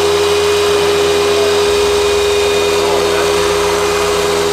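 An electric machine motor running steadily, with a constant high whine over a rushing hiss and no change in speed or load.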